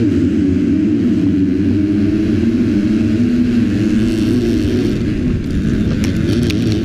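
Motocross bikes launching off the starting gate: the onboard bike's engine at full throttle, shifting pitch amid the engines of the field. Sharp clicks come in near the end.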